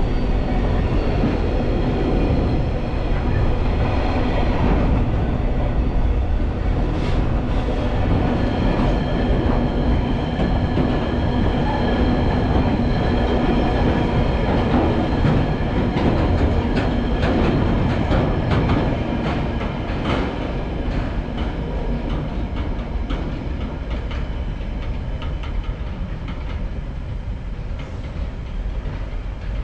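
A train running past, its wheels clicking over the rail joints above a steady rumble; the sound eases off over the last several seconds.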